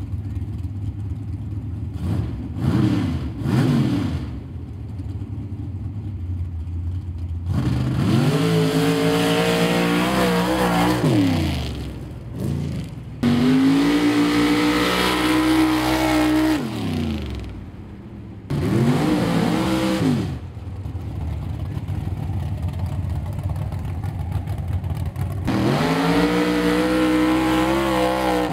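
Mud-racing pickup trucks' engines revving up hard as they accelerate through a dirt pit, in several runs cut one after another. Each run climbs in pitch and then drops away.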